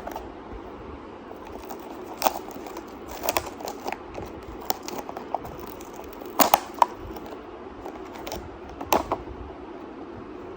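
Scattered sharp clicks and taps from small objects being handled, loudest about two, three, six and a half and nine seconds in, over a steady background hum.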